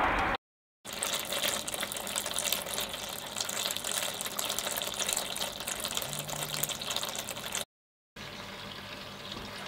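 Wort pouring in a steady stream from a copper pipe into a plastic fermenting bucket, splashing onto a foaming surface. It is broken twice by short silent gaps, about half a second in and near the end.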